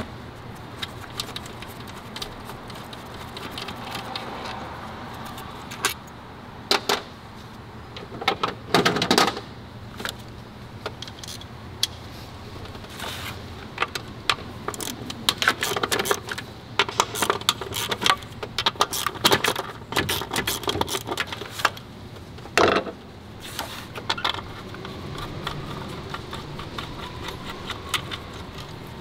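Hand ratchet clicking in quick runs, with metal clinks from the socket and bolts, as the 10 mm bolts holding a throttle body are loosened and taken out.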